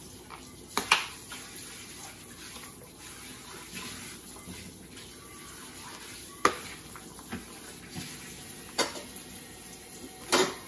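Kitchen tap water running into a sink, a steady hiss, with a few sharp clinks of metal utensils and dishes scattered through.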